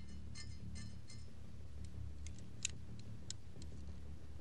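Light metallic clicks and small ringing clinks as old radio parts are handled, irregular, the sharpest one about two and a half seconds in, over a steady low hum.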